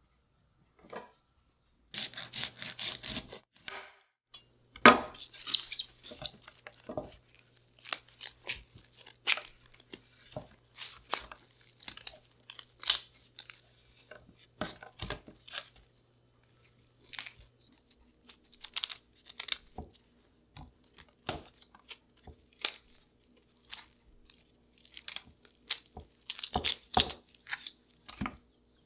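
Fresh bamboo shoots being peeled and split by hand: irregular crisp tearing and snapping as the husk layers are stripped off and the tender flesh is pulled apart into strips. The sounds come thickest about two seconds in and again near the end.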